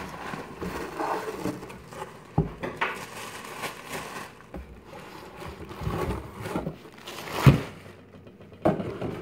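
A cardboard shipping box and its packaging being handled and opened: irregular rustling and scraping with a few light knocks, loudest about two-thirds of the way through and again near the end.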